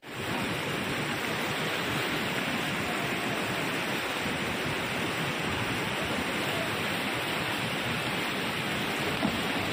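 Fast-flowing floodwater rushing across a road, a steady, even rush of water.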